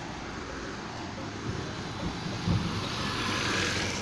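Road and traffic noise heard while moving along a road: a steady rush that swells louder near the end, with a few low rumbles about two and a half seconds in.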